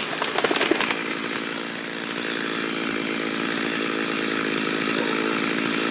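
Gasoline chainsaw running steadily at cutting speed on a tree. A few sharp clicks sound in the first second.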